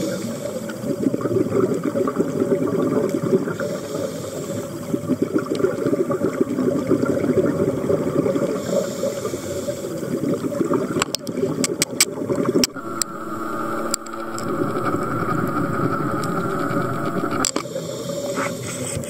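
Underwater sound of a scuba diver's regulator breathing: surging bubble noise from exhalations alternating with hissing inhalations every few seconds, with a short run of sharp clicks about two-thirds of the way through.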